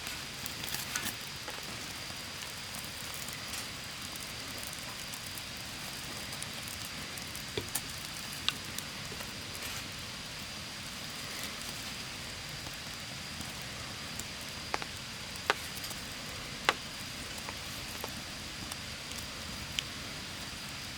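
Wood fire crackling: a steady hiss with scattered sharp pops, a few louder ones around the middle.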